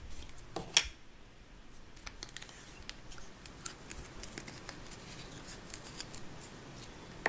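Hands opening a plastic Play-Doh tub and handling the dough. A sharper click comes just under a second in, then faint scattered ticks and rubbing of fingers and plastic.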